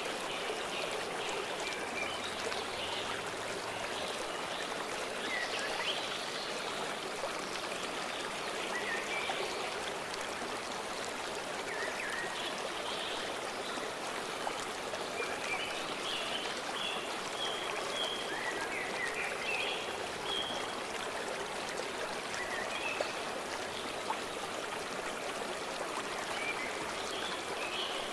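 A stream flowing steadily, with birds chirping now and then over the rush of the water.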